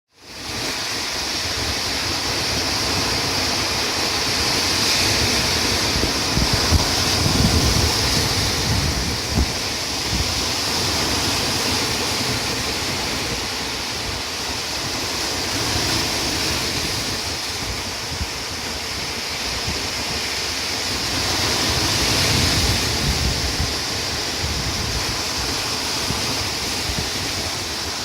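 Baltic Sea waves washing onto the shore in a continuous rush, swelling louder twice as bigger waves break. Wind buffets the microphone during the louder surges.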